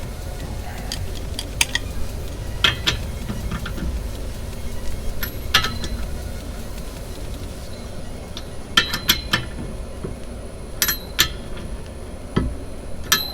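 Irregular sharp metallic clinks and taps of hand tools and brake hardware being handled, some coming in quick clusters of two or three, over a steady low rumble.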